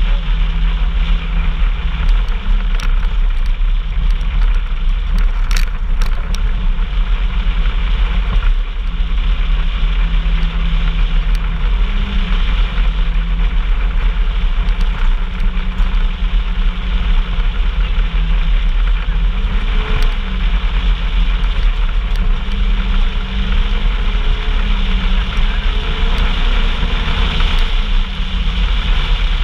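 Off-road vehicle's engine running while driving, its pitch rising and falling with speed, over a heavy low rumble.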